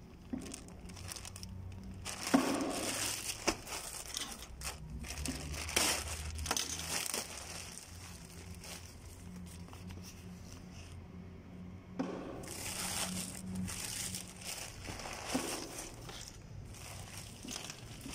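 Plastic courier mailer bag crinkling and rustling as it is torn open and handled by hand, in irregular bursts.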